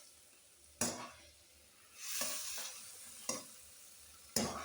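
Stir-frying in a pan: a spatula scrapes and knocks against the pan three times while food sizzles, the sizzle swelling about two seconds in.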